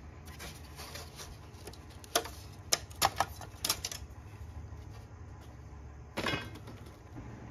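A few light metallic clicks and taps as a car grille and its loose stainless trim strips are handled and set down, with a short pitched sound about six seconds in.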